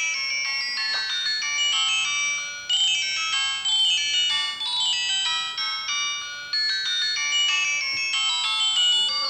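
Philips E106 mobile phone playing an electronic ringtone melody of several notes at once, with brief breaks about two and a half and six and a half seconds in.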